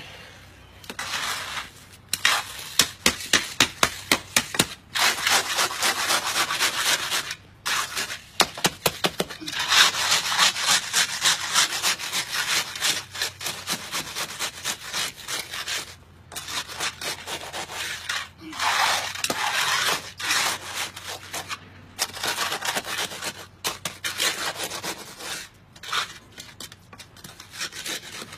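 Concrete hand float scraping back and forth over fresh concrete in heavy rubbing strokes, smoothing and levelling an uneven section of the slab. The strokes come in runs, some quick and evenly spaced, others blending into continuous rubbing, with short pauses between runs.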